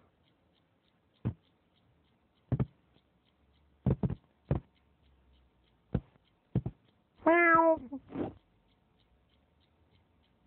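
A domestic cat meowing to wake its owner: one loud, high meow near the end, with a short second sound right after it. Before the meow there is a scattered series of sharp taps or knocks.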